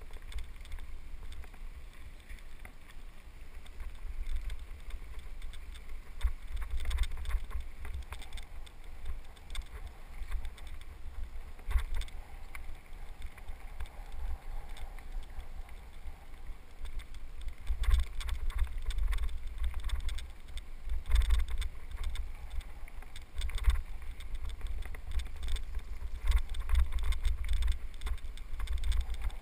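Low, gusting wind rumble on a helmet-mounted camera as a bicycle rolls along a bumpy dirt trail, with scattered knocks and rattles from the bike over the ruts, more frequent in the second half.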